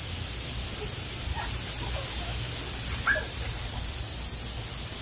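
Steady hiss of a lawn sprinkler's water spray, with a few faint short high-pitched calls and one louder brief yelp about three seconds in.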